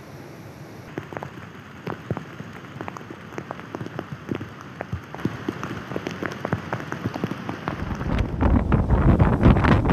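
Rain falling, with many sharp drops striking close by. About eight seconds in, loud wind buffeting the microphone takes over with a low rumble.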